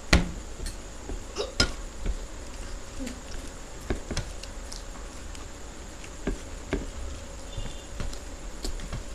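Scattered crackles and clicks of puffed rice (ghugni muri) being scooped by hand from plates and chewed. A sharp knock just at the start is the loudest sound.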